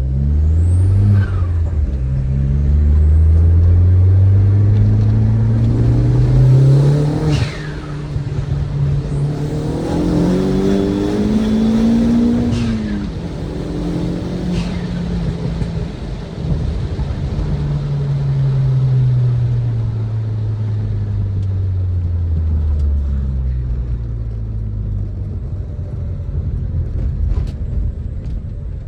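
Audi A3 1.8T 20V's turbocharged four-cylinder, on a 3-inch stainless exhaust, pulling up through the revs. It eases off about seven seconds in, pulls again, holds, then winds down slowly as the car slows. A high whistle falls away each time the throttle closes.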